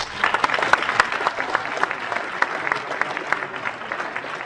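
Audience applauding: many people clapping at once, a dense stream of hand claps.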